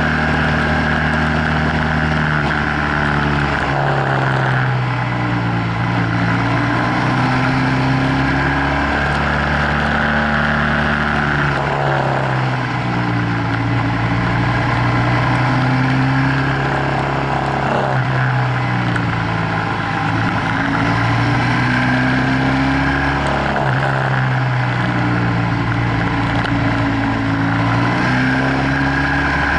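BMW F800GS parallel-twin engine under way. Its note climbs and drops back again and again as the throttle is opened and closed through a run of bends, over a steady rush of wind and road noise.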